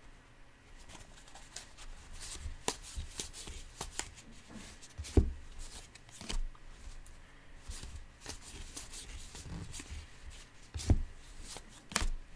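2019 Topps Allen & Ginter baseball cards being flipped through by hand, a steady run of soft card-on-card slides and clicks. Twice, about five seconds in and near the end, there is a louder dull knock.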